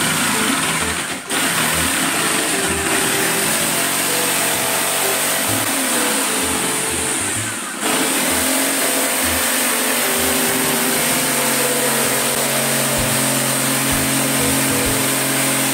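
Corded electric jigsaw running and cutting through a wooden board with a steady, loud buzz, breaking off briefly about a second in and again near the middle.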